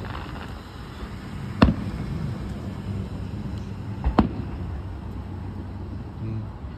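Aerial firework shells bursting: two sharp booms, the first about a second and a half in and the second some two and a half seconds later, each trailing off in a brief low rumble.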